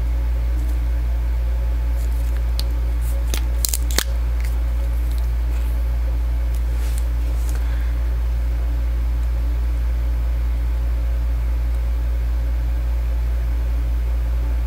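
A plastic lipstick tube being handled and opened: a few sharp clicks about three to four seconds in, the loudest one near four seconds as the cap comes off, over a steady low hum.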